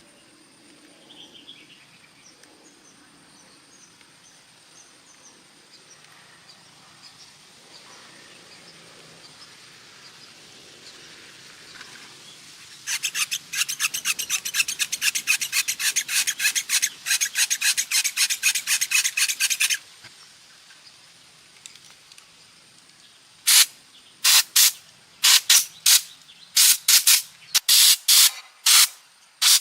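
Abrasive hand strokes rasping on a hard surface: a fast run of about four strokes a second for some seven seconds, then after a pause slower, separate strokes about two a second.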